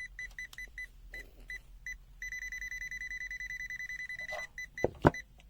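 A CZDANG 12S multimeter's beeper sounding its non-contact voltage alert with short high beeps at one pitch, spaced at first, then rapid and almost continuous for about two seconds as the meter senses a live wire close by. Two sharp clicks come near the end.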